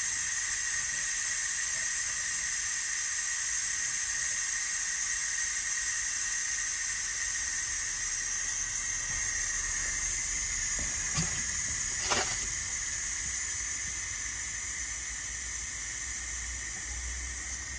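Ninja Foodi OP100 pressure cooker hissing steadily as steam escapes while it cooks at pressure, with a thin whistle in the hiss. Two short knocks come about eleven and twelve seconds in, the second the louder.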